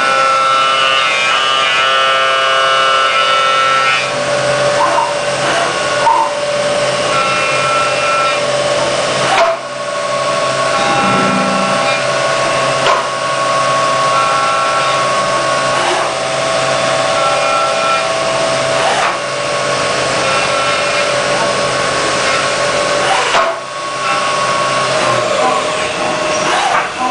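Deckel Maho CNC milling machine cutting at high spindle speed: a loud, steady whine of several high tones that change in pitch and strength every few seconds as the cutter moves from pass to pass, with short dips about nine and twenty-three seconds in.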